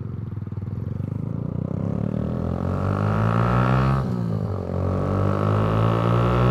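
Kawasaki Z125's small single-cylinder engine through a Yoshimura aftermarket exhaust, accelerating hard from a stop. The pitch climbs high in first gear, drops at an upshift about four seconds in, then climbs again in second toward the rev limiter.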